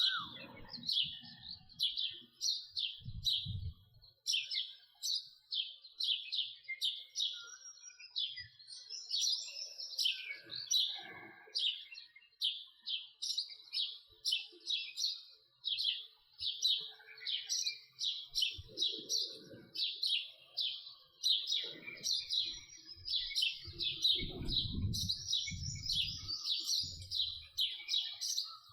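House sparrow chirping: a long, unbroken run of short, high chirps, about two to three a second, with a few brief low rumbles in the background.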